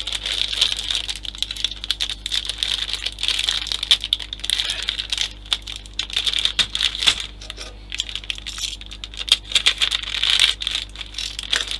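Plastic model kit parts and a small bag of screws being handled: a dense, irregular run of small clicks and light rattles with some crinkling of plastic packaging.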